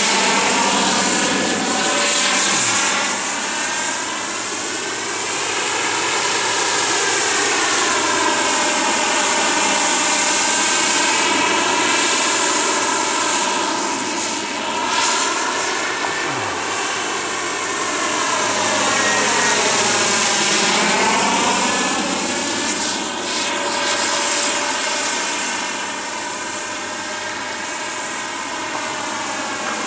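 Hughes 500 helicopter in flight: a steady high whine and rotor noise whose tone sweeps and swirls up and down as it moves about in the air. A little fainter near the end.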